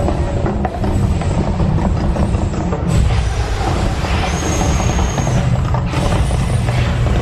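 Deep, loud rumbling from the volcano show's eruption effects and sound system, with a hissing rush that swells in the middle.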